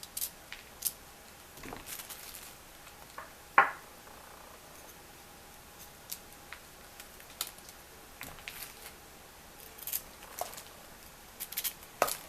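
Knife cutting through raw cauliflower florets: scattered crisp crunches and clicks, the loudest about three and a half seconds in, with a quick run of them near the end.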